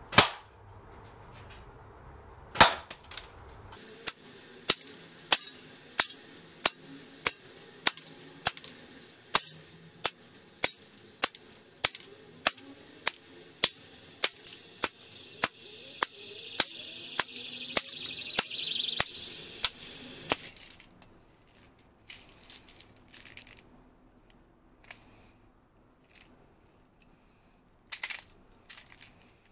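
Shots from a Snow Wolf Kar 98k spring-powered airsoft rifle and its 0.28 g BBs hitting a beer can. There are two loud cracks at the start, then an even run of sharp cracks about two a second that stops about 20 seconds in. Near the end a few scattered clicks come from the magazine being handled.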